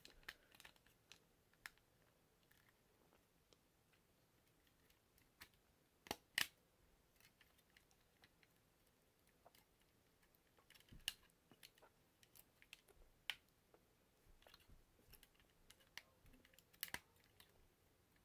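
Faint, scattered clicks and snaps of the hard plastic parts of a Transformers Snapdragon figure being turned and popped out of place during its transformation, with a few sharper snaps spread through.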